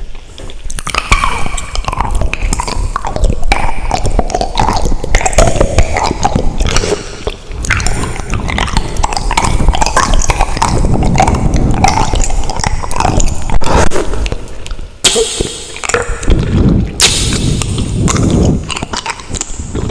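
Close-miked mouth sounds of eating Buldak carbonara instant ramen: chewing, with short pauses between mouthfuls.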